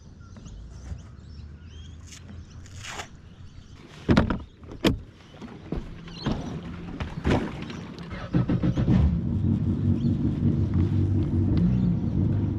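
Yamaha FX HO WaveRunner jet ski engine idling steadily for the last few seconds. Before it comes in there is a low hum and two sharp knocks about a third of the way in.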